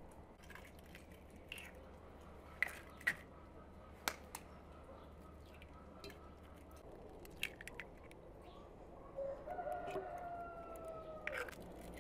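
A few sharp taps of eggs being cracked for a cake batter, then a rooster crowing once near the end, one long call that sags in pitch as it finishes.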